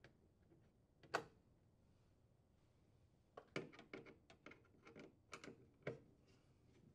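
A sharp click about a second in, then a run of light, irregular clicks and ticks from about three and a half to six seconds in: a screwdriver working out a screw that holds a refrigerator's plastic LED light housing.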